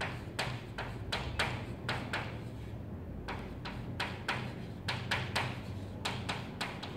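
Chalk tapping and scratching on a blackboard as a line is written: a quick, irregular run of sharp clicks, about three a second.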